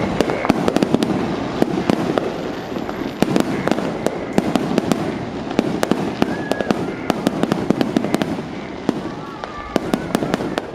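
Fireworks display: a dense, continuous run of sharp bangs and crackles, easing a little briefly near the end before picking up again.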